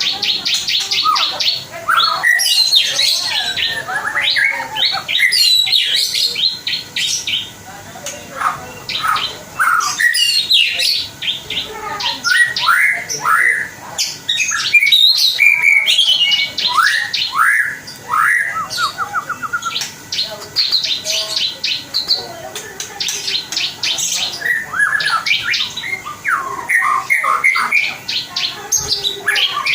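A young wild-caught white-rumped shama (murai batu) singing a long, varied song of rapid repeated notes, sliding whistles and fast trills, with unusual phrases mixed in.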